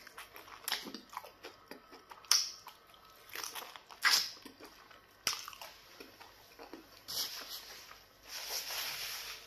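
Close-up eating sounds of pounded yam fufu and black soup eaten by hand: several sharp, wet lip smacks with soft chewing in between, then a longer rustling hiss near the end.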